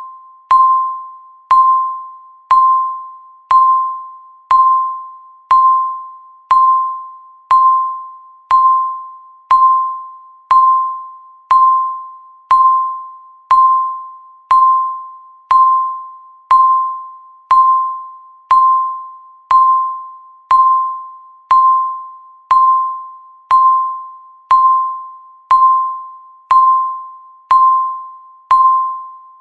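Countdown timer's electronic beep sounding once every second: a single mid-pitched tone, each struck sharply and fading away before the next.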